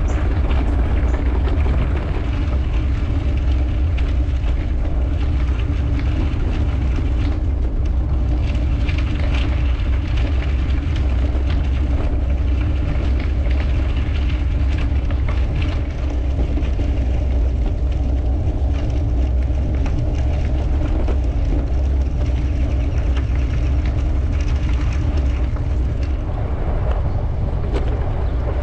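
Steady low rumble of wind buffeting a bike-mounted action camera's microphone, mixed with bicycle tyres rolling on a gravel trail.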